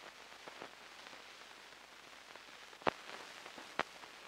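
Steady hiss and crackle of an old film soundtrack, with scattered clicks and pops, two louder ones near the end.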